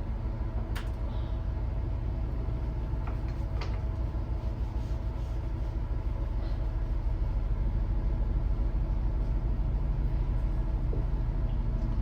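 Steady low hum with a few faint clicks, the loudest about one second in and another at about three and a half seconds.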